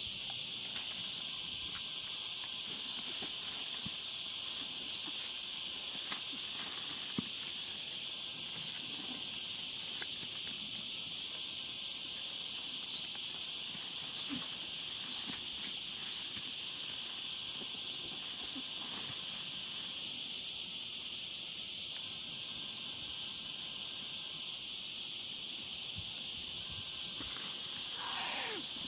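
Steady high-pitched chorus of insects droning, with faint scattered rustles of dry leaves.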